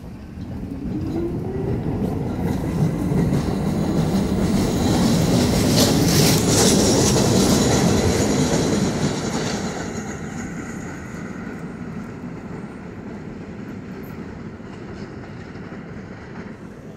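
Staten Island Railway R44 subway train pulling out of the station: a motor whine rises in pitch as it gets moving, and the wheels run loud on the rails as the cars pass, loudest about six seconds in. It then fades steadily as the train draws away down the line.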